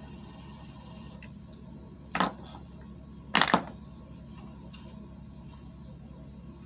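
Two short, sharp clicks over a low steady room hum as a bottle of Maybelline Fit Me liquid foundation is handled: one about two seconds in, then a louder quick double click about a second later.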